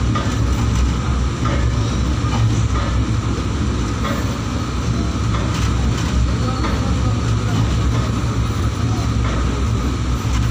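Steady low rumble of a moving vehicle, heard from on board, with a few scattered knocks.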